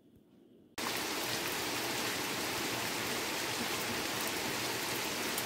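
Heavy rain pouring down steadily, cutting in suddenly about a second in after faint quiet.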